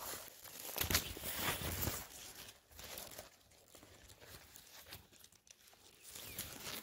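Tall grass and weeds rustling and crackling close to the microphone as someone walks through them, loudest about a second in, with quieter rustles after and another burst near the end.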